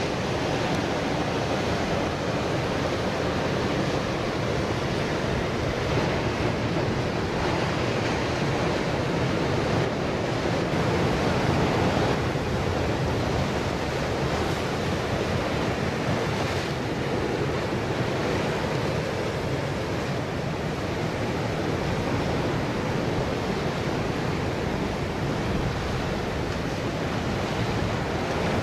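Ocean surf breaking and washing over coastal rocks: a steady rush of waves.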